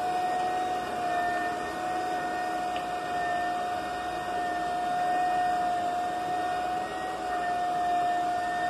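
Electric high-speed floor burnisher running, a steady high whine over a broad rushing hum as its pad spins on the floor.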